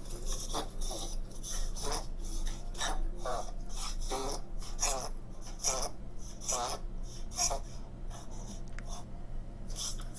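A dog coughing in a rapid string of dry, honking hacks, about two a second, with a goose-like sound. This goose-honk dry cough is the kind the vet links to a narrowed trachea.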